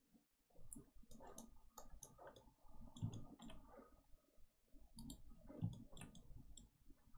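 Faint, irregular clicking of a computer mouse and keyboard, a dozen or so separate clicks.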